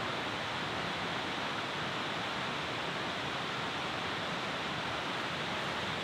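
Steady rush of flowing water, an even hiss with no let-up.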